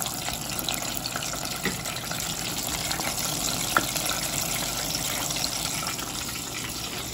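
Floured sea snake pieces deep-frying in hot oil over high heat in a small tempura pot: a steady sizzle with scattered crackles, and one sharp tick about four seconds in.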